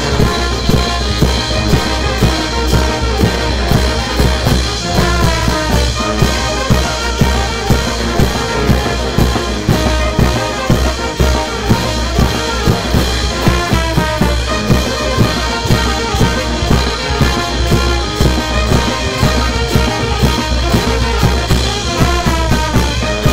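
Brass band playing: trumpets and trombones over a drum kit keeping a steady beat, with a falling brass run three times.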